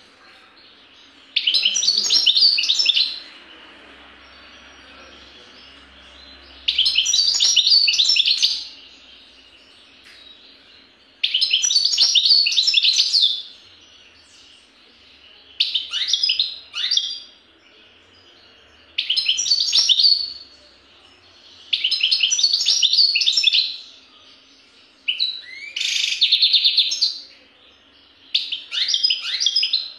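European goldfinch singing: about nine bursts of rapid, high twittering song, each a second or two long, separated by short pauses.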